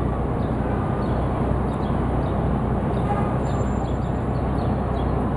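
Steady city street noise, a low traffic rumble and hum, with faint, scattered bird chirps above it.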